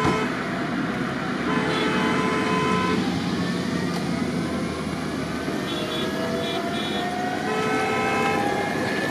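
AgustaWestland AW109 Grand twin-turbine helicopter running on the ground with its rotor turning, its whine slowly rising in pitch from about four seconds in. A horn honks twice, briefly, over it.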